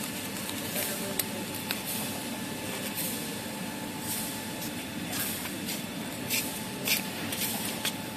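Steady mechanical din of a running kitchen-towel paper converting line, with short sharp hisses breaking in every second or so.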